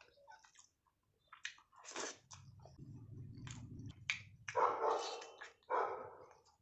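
Close-miked eating of rice and egg curry: wet chewing with sharp mouth clicks and smacks, and several louder short bursts in the second half.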